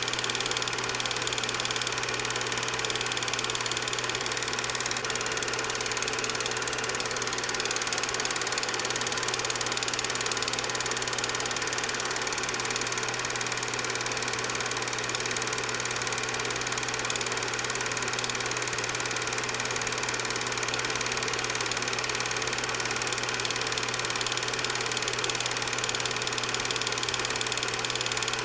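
An 8mm film projector running: the steady whir of its motor and film mechanism, unchanged throughout.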